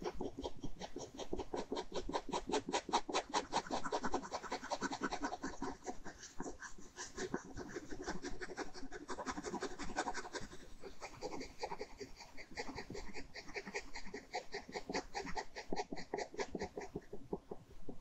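Ballpoint pen scratching on paper in quick, even hatching strokes, several a second, as shading is built up.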